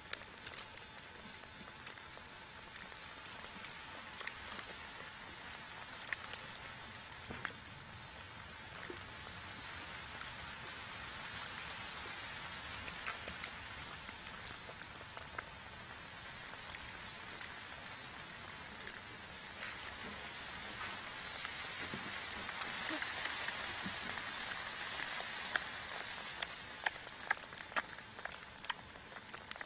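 Soft scratching and rustling of a rabbit working at loose soil over its burrow, with sharper scrapes clustered near the end. A high, thin chirp repeats evenly about twice a second in the background.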